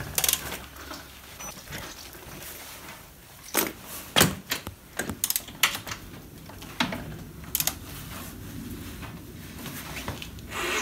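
Metal wrench clicks and tool clanks as nuts are tightened on a motorcycle's chain drive: a scatter of separate sharp clicks, some in quick clusters.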